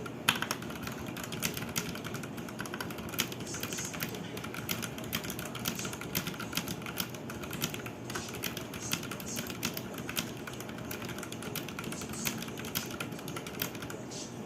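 Typing on a Zifriend T62 mechanical keyboard: a continuous, uneven run of key clicks and clacks.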